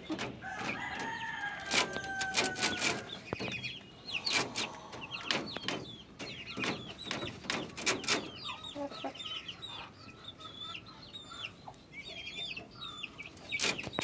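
Polish chickens calling: the rooster crows once near the start, a long call that falls slowly in pitch. After that come many short, high calls and clucks, with scattered sharp clicks.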